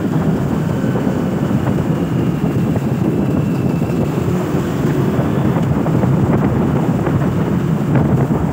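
Motorcycle riding along at a steady speed, heard from the rider's seat: a steady engine and road drone mixed with heavy wind buffeting on the microphone.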